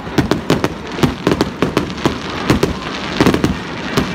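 Fireworks going off: a rapid, uneven string of bangs and pops, several a second.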